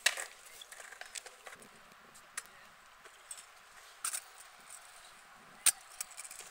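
Stunt scooter on concrete skatepark ramps: scattered sharp clacks and knocks over a faint hiss, the loudest knock about five and a half seconds in.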